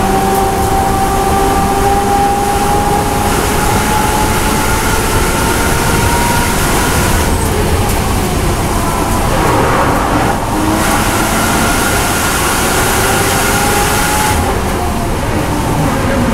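In-car sound of a BMW M240i race car's engine pulling in fifth gear, with a whine that rises slowly with speed. About halfway through the car brakes hard and the whine fades, and it has shifted down to third gear near the end.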